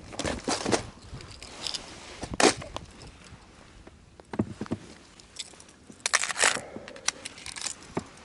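Hard plastic wobbler lures clicking and rattling in a clear plastic tackle box as it is handled, with jacket sleeves rustling. The sharpest clacks come about two and a half seconds in and again around six seconds in.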